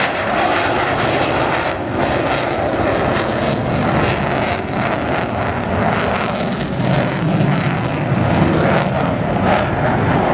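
Jet engine noise of Mitsubishi F-15J fighters flying past: a loud, steady rushing noise that swells somewhat in the second half.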